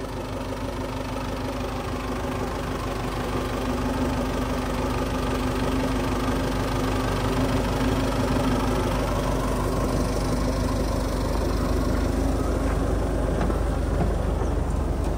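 Belarus tractor's diesel engine running steadily while pulling a potato planter under load, growing a little louder over the first few seconds.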